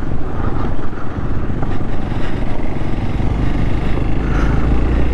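Hero XPulse 200 single-cylinder motorcycle engine running steadily at low road speed on a rough gravel road, heard from the rider's seat under a haze of tyre and wind noise.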